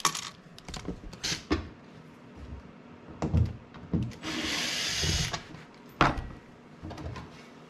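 Hand tools clicking and knocking against a metal mounting plate, with a cordless drill running in one steady stretch of about a second near the middle.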